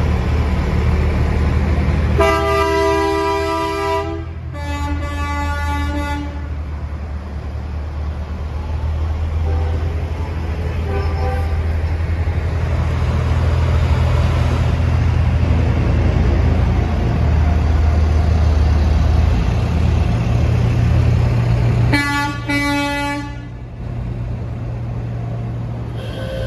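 Diesel engines of semi trucks running as they drive past, with truck air horns blown: a long multi-tone blast about two seconds in, a shorter one right after it, and another near the end.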